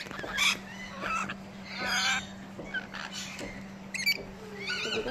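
Rainbow lorikeets calling: several short, shrill calls, the loudest about half a second and about two seconds in.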